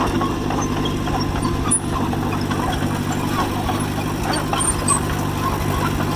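John Deere 1010 crawler's engine running steadily at a low, even speed, with light scattered rattling from the machine.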